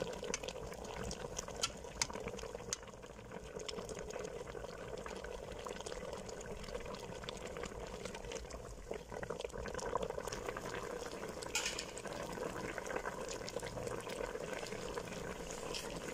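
Gulai curry sauce bubbling steadily in a pot around a whole chicken, with scattered light clicks and scrapes of a cooking utensil against the pot.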